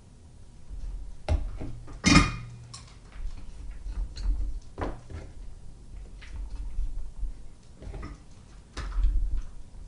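Light metallic clicks and clatters of soldering tools and wire pieces being handled and set down on a workbench, with dull bumps against the bench. The loudest clatter comes about two seconds in.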